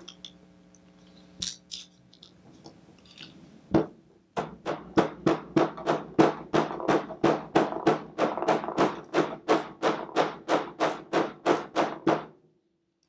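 A hammer tapping a pin punch to drive a press-fitted shaft out of a Gibson G-Force robot tuner's metal housing. A couple of single taps, then a steady run of about three metal-on-metal taps a second for some eight seconds.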